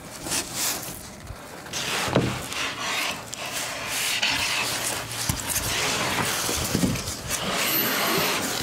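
Irregular rubbing, scraping and knocking of sheets of insulation being handled and shifted onto a truck camper's roof.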